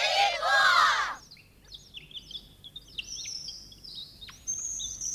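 Birds chirping and twittering: many quick high chirps and short falling whistles, one after another, following a shouted word at the start.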